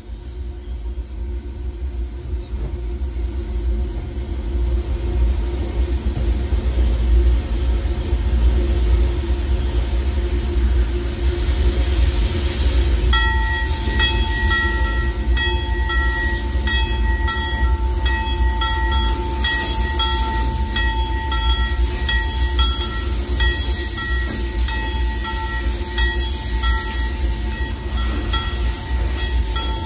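Steam locomotive running, heard from inside the cab: a heavy, steady rumble. About halfway through, a high ringing tone comes in and holds, with a higher note pulsing over it about once a second.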